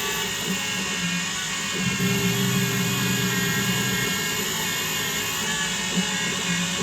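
Small CNC lathe running, its spindle whirring steadily as the tool turns and forms a screwdriver handle. A lower hum swells from about two to four seconds in and again near the end.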